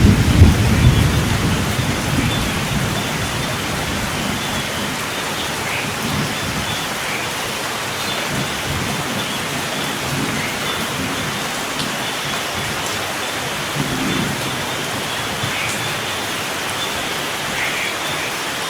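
Steady rain falling, with a low rumble of thunder that dies away over the first few seconds.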